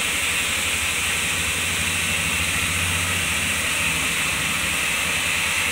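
Handheld hair dryer running on wet hair: a steady rushing hiss over a low motor hum.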